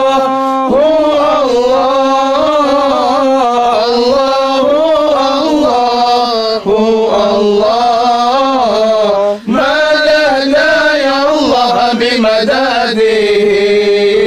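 A man sings unaccompanied in a Naqshbandi Sufi devotional chant, a sung tawassul through the order's chain of masters. He holds long drawn-out notes that wind up and down in pitch, with two brief breaks about six and a half and nine and a half seconds in.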